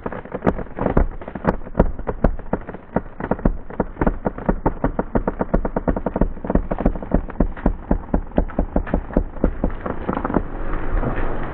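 Rapid, evenly spaced ratchet clicks, about four or five a second, of a hand-cranked rope winch being worked to pull a tree over. Near the end a broad rushing noise swells up.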